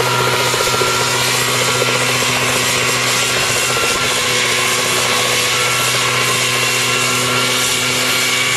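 Homemade single-seat helicopter running, its engine droning at a steady, unchanging pitch while the rotor turns overhead.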